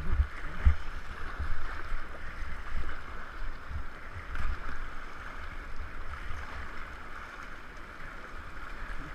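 River rapids rushing steadily around a kayak running whitewater, with an uneven low rumble from water and wind buffeting the microphone.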